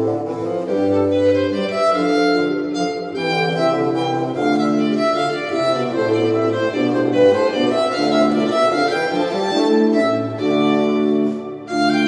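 Background music: bowed strings, violin to the fore, playing a slow piece in long held notes.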